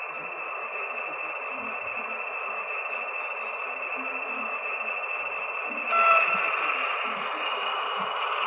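H0-scale model train running on track: the steady whirring hiss of a PIKO SM42 model locomotive's motor and gears with its wheels rolling on the rails. About six seconds in, a sudden louder scrape with a brief squeal.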